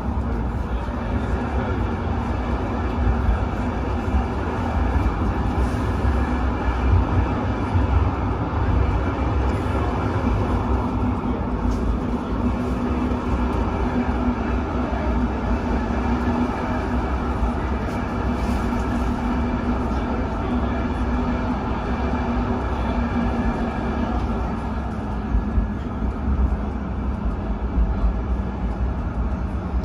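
Tram running on its rails, heard from inside the passenger car: a steady low rumble with a faint hum.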